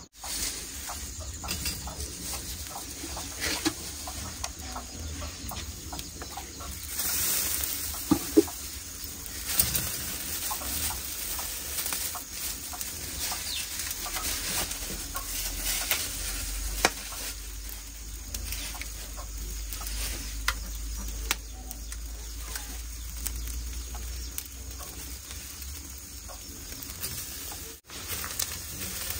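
Meat sizzling in a wire grill basket over glowing wood embers, with fine crackling throughout and a louder burst of sizzling about a quarter of the way in. Chickens cluck in the background.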